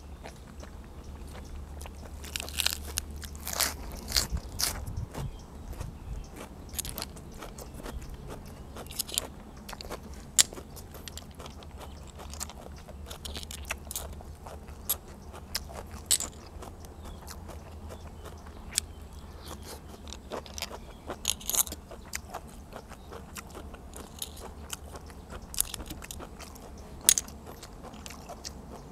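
Close-miked eating: chewing and crunching a meal of blanched blood cockles and fresh raw vegetables, with many short sharp clicks and scrapes over a low steady hum.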